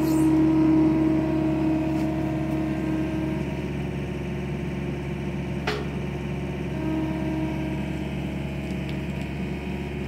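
Compact track loader's engine running steadily, slightly louder in the first second, with one sharp click a little past the middle.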